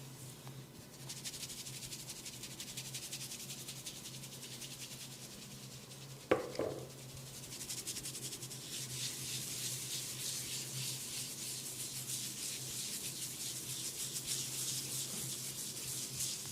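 Hands rapidly scratching and rubbing an oiled scalp and hair, a fast dry rasping texture, with one sharp snap about six seconds in.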